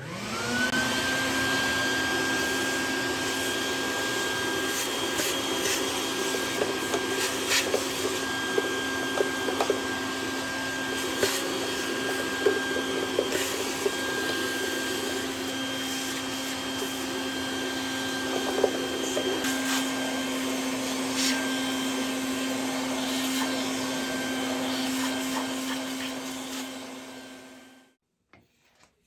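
A vacuum cleaner switched on, spinning up to a steady running whine, with scattered crackles and ticks as loose debris is sucked up; it switches off near the end and winds down.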